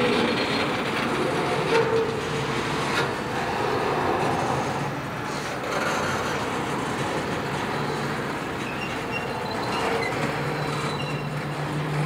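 Loaded double-stack container well cars of a freight train rolling past, their steel wheels running on the rails as a steady noise with a few sharp knocks. A low steady hum comes in near the end.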